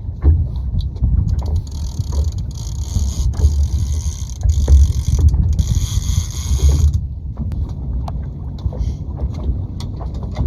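Fishing reel being cranked, a mechanical whirring from about two seconds in until about seven seconds, over a steady low rumble.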